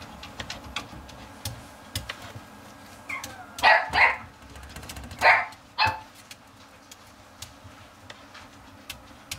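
Puppies play-fighting, with about five short, sharp yaps and barks between about three and six seconds in. Light scattered clicks run beneath them.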